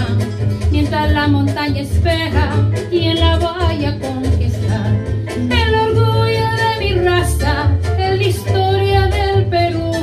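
A woman singing a Peruvian tondero into a microphone, with long, gliding sung lines over recorded instrumental accompaniment that has a steady pulsing bass.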